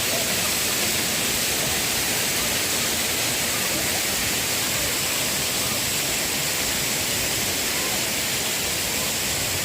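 Waterfall water rushing steadily, an even hiss of falling, splashing water without a break.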